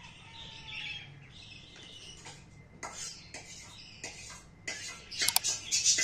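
Young budgerigar chattering and chirping softly, with a few sharp clicks. About five seconds in, a louder hissing swoosh with clicks begins: the sound effect of an on-screen subscribe button.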